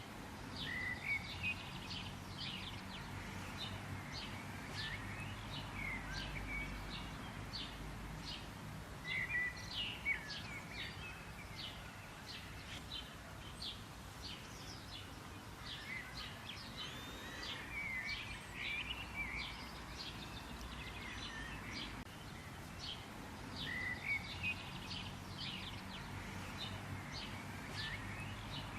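Birds calling continuously: a rapid run of short, sharp chip notes, with louder sweeping chirps every few seconds, over a faint low background rumble.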